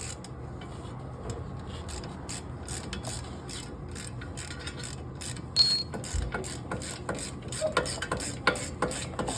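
Hand ratchet wrench clicking in a steady run of short strokes, several clicks a second, as the wheel hub mounting bolts are backed out. One louder metallic clank about five and a half seconds in.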